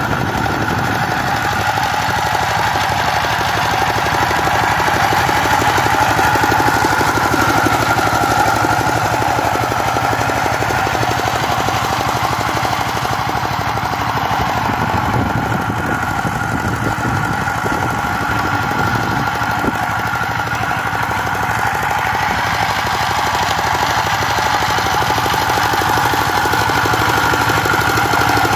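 Two-wheel power tiller's single-cylinder diesel engine running steadily under load with a fast knocking beat as its rotary tiller churns dry soil.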